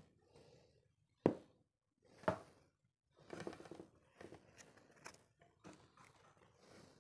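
Crisp fried papad breaking and crumbling in the fingers, close to the microphone: two sharp cracks in the first few seconds, then a stretch of softer crackling with small snaps.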